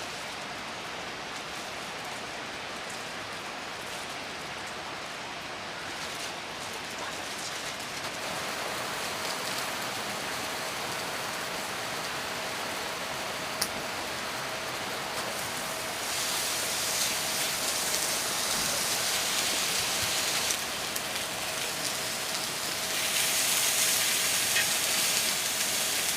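Heavy rain falling, a steady hiss of drops that grows louder in steps about 8, 16 and 23 seconds in. A faint steady tone runs underneath from about 8 seconds in, and there is a single sharp click about halfway through.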